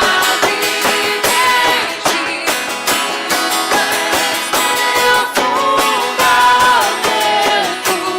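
Worship band music: strummed guitars keeping a steady beat, with a melody line held and bending on top.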